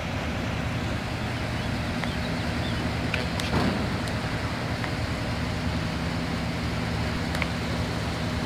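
A steady low mechanical hum with even low tones, like an engine or motor running at a constant speed, with a few faint clicks about three and a half seconds in and again near the end.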